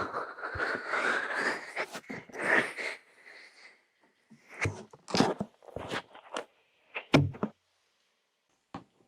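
Fingers rubbing on an ASMR microphone's ears in an ear massage: about three seconds of continuous rubbing and rustling, then a string of separate short rubs and taps with silence between them.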